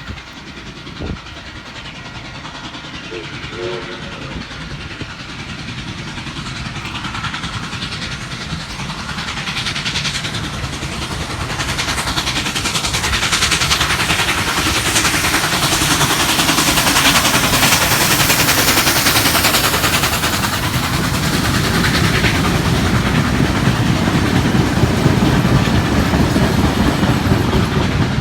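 A train approaching and passing, growing steadily louder over the first half and then staying loud. A brief faint tone sounds about three seconds in.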